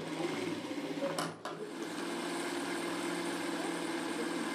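Industrial sewing machine running and stitching fabric with a fast, even needle rhythm. It stops briefly just over a second in, then runs steadily again.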